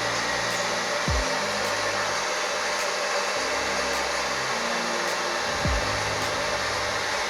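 Hair dryer blowing steadily, drying a layer of wig glue until it turns clear. Low background-music bass notes with falling bass drops play underneath.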